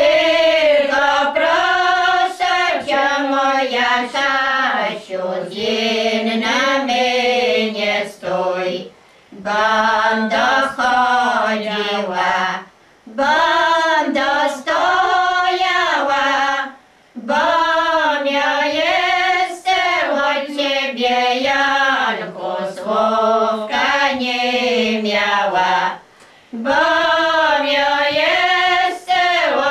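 A group of village women singing a traditional Polish wedding-procession song unaccompanied, in long drawn-out phrases with short breaks for breath between them.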